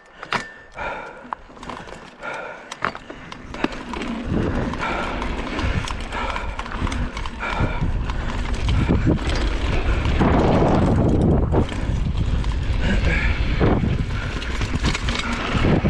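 Mountain bike riding a dirt jump trail: tyres on dirt and the bike rattling and clicking over the ground. About four seconds in, a loud rushing rumble of wind and tyre noise sets in as the bike picks up speed.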